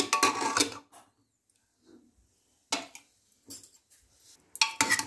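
Aluminium pressure cooker lid being twisted open and lifted off after cooking chickpeas: a metallic scrape and ring at the start, then a few short metal clanks, the loudest near the end.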